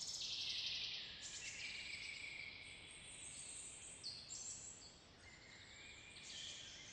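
Faint woodland ambience: a soft, high insect chirring with a few short bird chirps around the middle.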